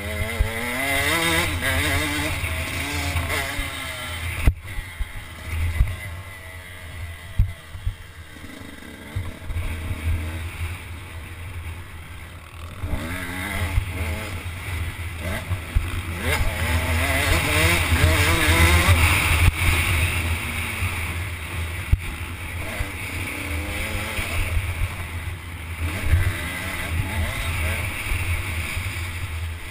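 Dirt bike engine revving up and down as the throttle is opened and closed. The revs drop and it runs quieter for several seconds near the middle, then it pulls hard at high revs. There is a single sharp click early on.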